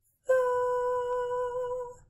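A single held musical note, steady in pitch and level, starting about a quarter second in and stopping sharply just under two seconds later.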